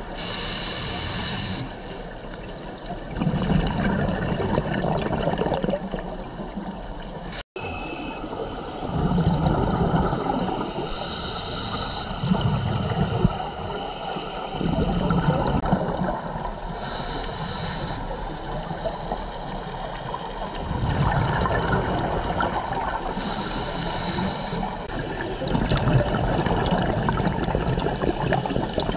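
Scuba regulator breathing underwater: a hissing inhale every six seconds or so, each followed by a gurgling rush of exhaled bubbles.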